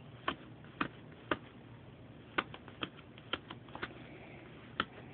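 A sharp point punching holes through a sheet of paper laid on carpet: about a dozen short, irregularly spaced taps, some in quick runs.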